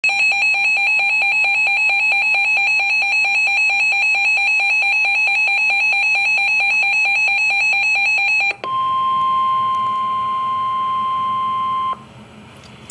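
Emergency alert tones: a loud, rapidly pulsing buzzy electronic alarm for about eight and a half seconds, then a single steady tone in the manner of the NOAA Weather Radio warning alarm for about three seconds, cutting off into a low hiss.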